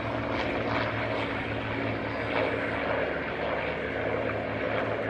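Piston-engined propeller aircraft flying, a steady engine drone.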